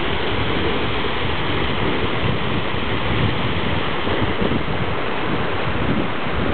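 Fast mountain stream rushing over rocks, a steady roar of water, with wind rumbling on the microphone.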